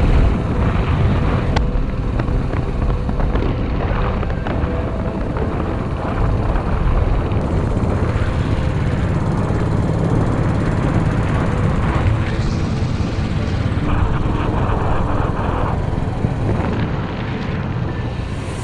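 Motorcycle being ridden along a road, heard from on the bike: a steady, low-pitched mix of engine and travel noise.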